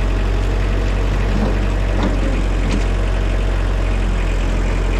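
Tractor engine running steadily at a low, even note while it loads scrap with its bucket, with a couple of faint clanks about two seconds in.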